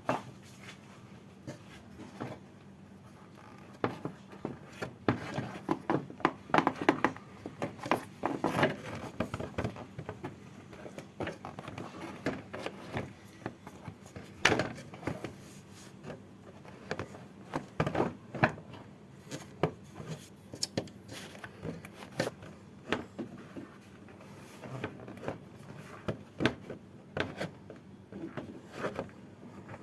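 Irregular clicks, knocks and rubbing from tools and parts being handled during repair work, busiest in the first third, over a faint steady hum.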